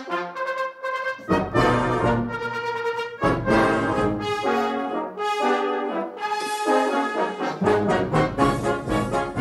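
A brass band playing: cornets, tenor horns, euphoniums, tubas and trombones in full sustained chords, with the low brass coming in about a second in. Near the end the music turns to shorter, more rhythmic notes.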